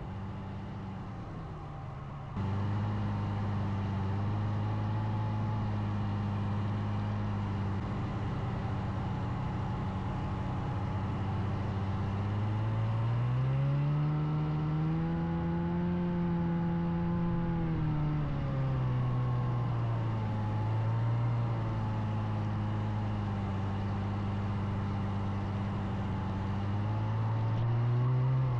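Snowmobile engine running under load while breaking trail through snow. It gets louder just over two seconds in, then its pitch rises about halfway through, holds for a few seconds and falls back, with smaller rises and dips later.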